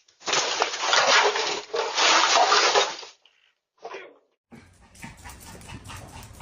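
A dog making loud, noisy sounds in two stretches of about a second and a half each, then a short burst, then quieter steady noise.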